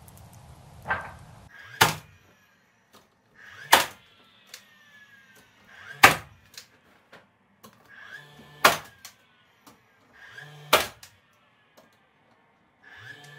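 Cordless DeWalt finish nailer firing five times, about two seconds apart. Each shot is a sharp snap, with a short motor whir before it and a falling whine as the motor winds down.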